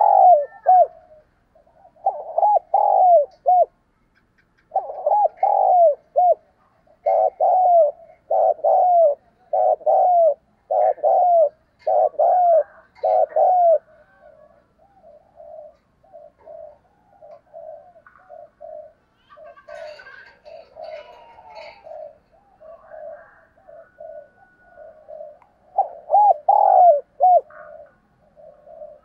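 Spotted dove cooing: phrases of three or four deep, arching coos repeated every second or two, loud in the first half and again near the end, with softer short coos in between. This is a decoy dove's song of the kind used to stir wild spotted doves into answering.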